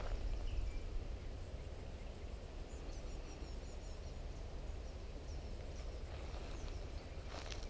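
Quiet woodland ambience with a low wind rumble on the microphone. A small bird chirps a quick run of high notes about three seconds in, and a footstep crunches on pine straw near the end.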